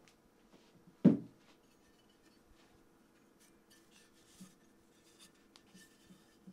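A single sharp knock about a second in as a hard object is set down on a desk, ringing briefly, followed by faint small clicks and light rubbing of items being handled.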